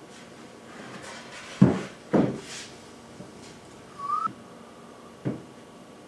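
A few hollow knocks of wooden pieces being handled and set down, two loud ones close together and a lighter one later, with a brief rising high note in between.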